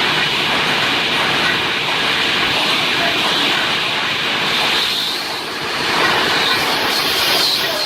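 Reinforcing-cage welding machine running: a dense, steady mechanical clatter and hiss, swelling briefly about five seconds in.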